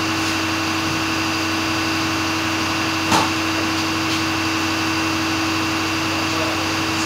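Steady machine hum in a garage shop, broken once by a short sharp knock about three seconds in.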